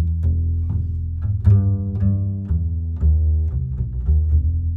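Background music with a deep string bass line, notes changing about twice a second, each with a sharp plucked attack.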